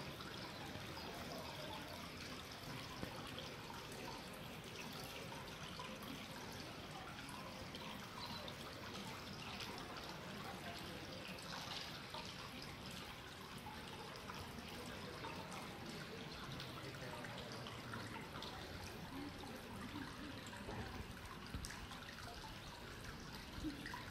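Steady trickling, splashing water, with small drips.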